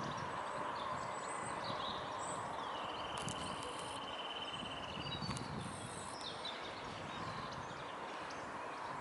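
Outdoor ambience: a steady background rush with small birds calling, including a rapid, even trill lasting about two seconds that starts about three seconds in.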